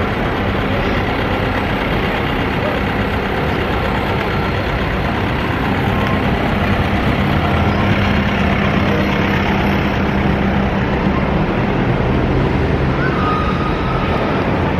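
Close city street traffic: a double-decker bus and cars running alongside, a steady engine rumble with a low hum swelling through the middle.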